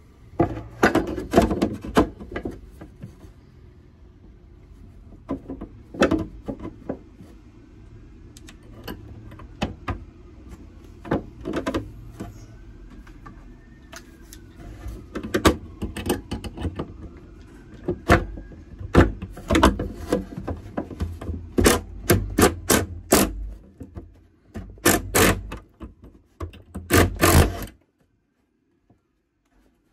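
Irregular clatter and knocks of hand work: a small metal angle bracket, screws and a tool being handled and set against a plywood lid and a metal drawer, thickest in the second half and cutting off suddenly near the end.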